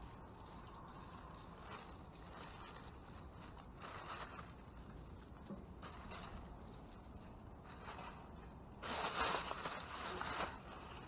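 Scraping and rustling of trash being handled and rummaged through in a dumpster, with a louder stretch of scraping starting about nine seconds in and lasting about a second and a half.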